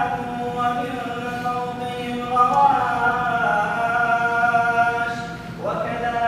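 A man reciting the Quran in a melodic chant, holding long drawn-out notes that bend in pitch; about five seconds in the voice briefly drops off, then slides up into a new phrase.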